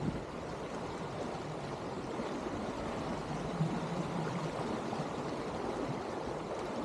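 Steady rush and wash of water along the hull of an Elan 310 sailboat moving under sail.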